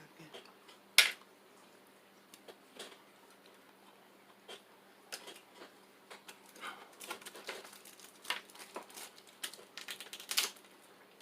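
Close-up eating sounds from a seafood boil mukbang: irregular wet clicks, smacks and snaps of chewing and handling the food, with one sharp, loud click about a second in.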